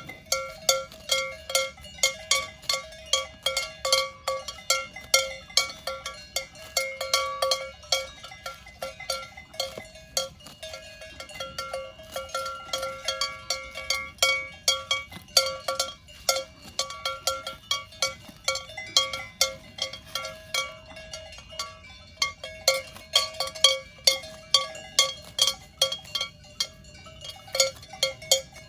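Several cowbells worn by grazing cows clanking irregularly as the animals move, a few strikes a second, each ringing on at its own pitch. There are brief lulls about a third of the way in and again after the middle.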